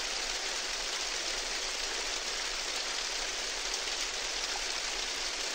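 Steady, even rain-like hiss with no change in level.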